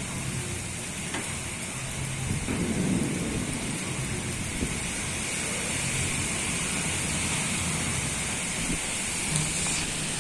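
Strong storm wind blowing: a steady rushing noise with irregular low gusty rumbles, the strongest about three seconds in.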